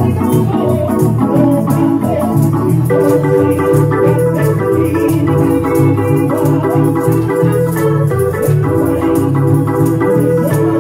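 Gospel music led by an organ: sustained chords over a moving bass line, with percussion keeping a steady beat.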